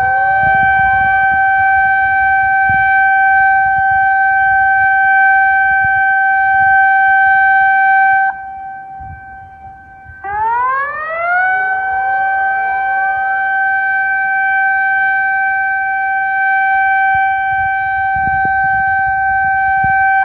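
A Japanese disaster-prevention warning siren. A tone rises to a steady wail and holds about ten seconds, cuts off for about two seconds, then rises and holds again. This ten-seconds-on, two-off pattern is the siren signal for a tsunami advisory.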